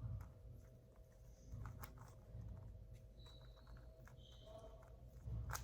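Faint, scattered clicking of 3x3x3 Rubik's Cubes being turned by hand, over a low steady hum.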